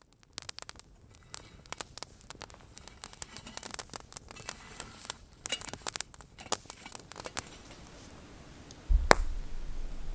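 Irregular crackling and rustling clicks, many in quick succession, thinning out after about seven seconds. About nine seconds in there is one sharp click followed by a low rumble.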